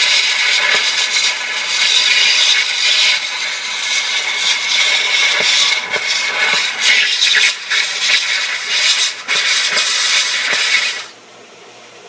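Gas brazing torch flame hissing steadily as it heats a leak on a copper pool-heater heat exchanger coil, while a silver-bearing copper-phosphorus rod is flowed onto the joint. The flame cuts off suddenly near the end.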